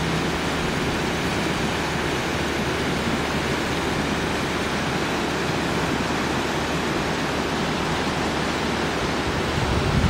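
River water rushing over rapids and shallows: a steady, even rush of white water.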